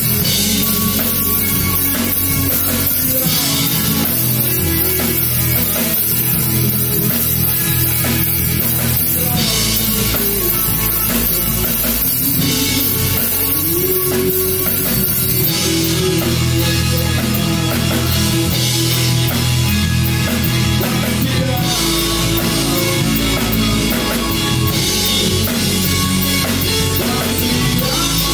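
A rock band playing live in the room: drum kit with cymbals, electric guitars and bass together. The cymbals become denser and steadier about halfway through.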